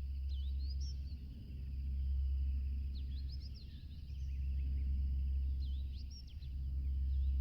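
Small birds chirping in short, quick clusters every few seconds, over a steady deep rumble that swells and fades.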